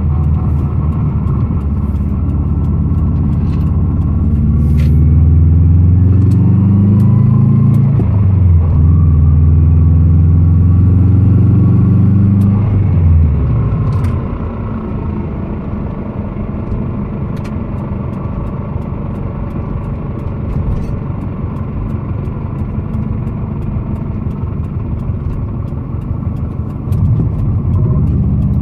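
2002 Subaru WRX driving: the engine note rises twice under acceleration, then falls away as the car slows and coasts with the engine quieter for about half the clip, before picking up again near the end. While it slows, the deceleration noise sounds, which the owner hears most when coasting in neutral and suspects is a transmission problem.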